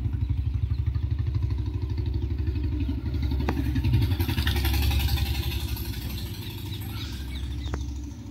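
A motorcycle engine running with a steady low pulsing beat, growing louder about halfway through and easing off toward the end.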